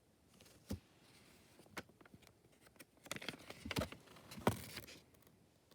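Faint handling of a paper picture book as a page is turned: light paper rustling and a few soft clicks, busiest a little past the middle.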